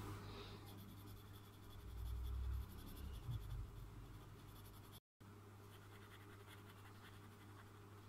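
Faint scratching of a marker and coloured pencil being drawn over paper in quick short strokes, over a steady low electrical hum. A dull low rumble, the loudest sound, swells around the middle.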